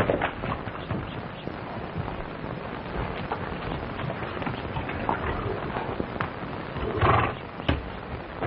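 Horse hooves knocking irregularly on a dirt path, with a man's footsteps, over the steady hiss of an old optical film soundtrack. A short, louder rush of noise comes about seven seconds in.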